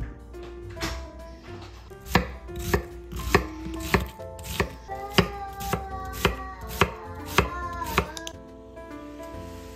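Chef's knife mincing an onion on a wooden cutting board: a steady run of sharp knife strikes, nearly two a second, stopping about eight seconds in. Soft background music plays underneath.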